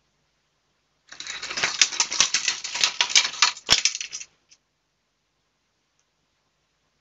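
Metal rat snap trap rattling and clinking on a concrete floor as a caught rat thrashes and pulls itself free: a dense run of metallic clicks and scrapes for about three seconds, ending in a sharp clack.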